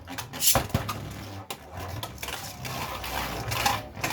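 Sharp plastic clicks and clatter of Beyblade Burst tops and launchers being handled, loudest about half a second in, followed by a busier scraping rattle.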